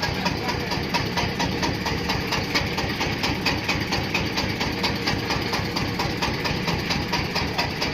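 Dong Feng 30 hp diesel engine running steadily with the corn sheller machine, a regular knocking beat of about five a second.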